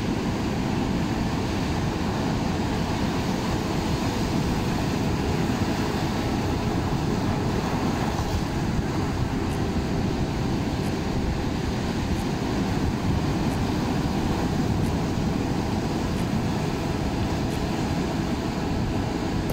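Ocean surf breaking and washing over the rocks, a steady rushing noise.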